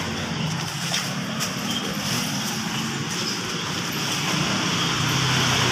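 Street traffic: a vehicle engine running with a steady low hum over road noise, getting louder near the end.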